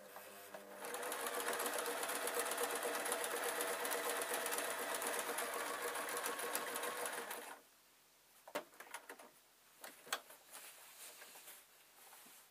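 Singer electric sewing machine stitching steadily through layered quilt fabric for about seven seconds, then stopping suddenly. After it stops there are a few light clicks and soft handling noises.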